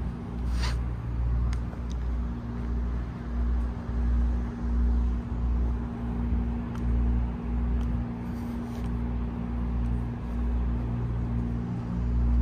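Heavy truck's diesel engine idling: a steady low hum with an uneven deep throb underneath.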